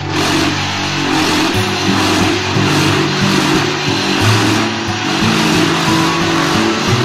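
QTJ4-28 semi-automatic concrete block making machine running its vibration cycle: a loud, harsh mechanical buzz and rattle that starts suddenly and cuts off suddenly, compacting the concrete mix in the mould. Background guitar music continues faintly underneath.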